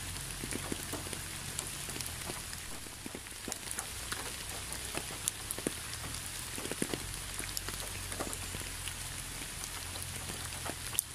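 Steady rain falling: an even hiss with many separate drops tapping sharply and irregularly on a nearby surface, over a low steady rumble.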